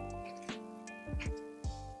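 Background music: sustained synth and bass notes over a light beat with percussive hits about twice a second.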